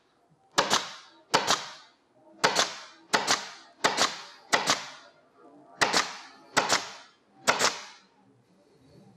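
Upholstery staple gun firing staples one at a time through convertible-top fabric into the header bow: about ten sharp shots, roughly three quarters of a second apart, stopping near the end.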